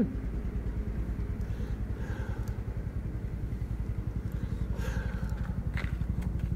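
A short knock, then a motor running steadily with a low, rapid, even throb, like an idling engine.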